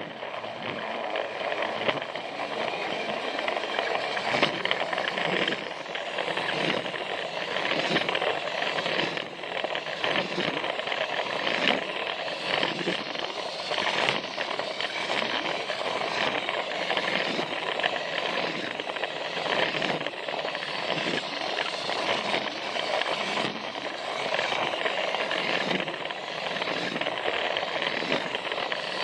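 Plarail battery-powered toy train running along plastic track: its small motor whirs steadily while the wheels rattle and click at the track joints.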